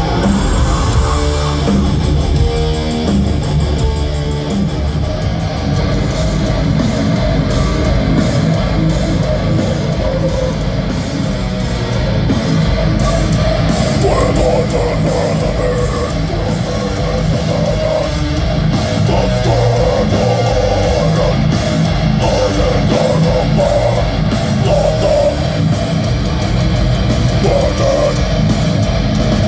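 Death metal band playing live through a venue's PA, heard from the crowd: heavily distorted electric guitars over bass and drums, loud and unbroken.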